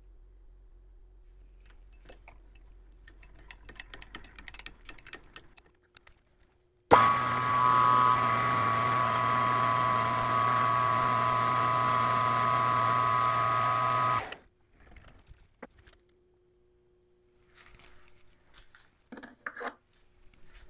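Metal lathe running with a boring bar cutting the bore of a spinning steel wheel: a steady machine whine with a pitched tone, which starts abruptly about seven seconds in and cuts off about seven seconds later. Before it come faint clicks of the tool slide being adjusted by hand.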